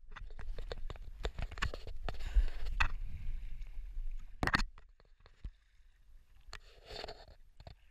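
Water sloshing and slapping against a stand-up paddleboard, with sharp knocks from the paddle and the board. It is busy for the first four or five seconds, then goes much quieter with only a few faint splashes.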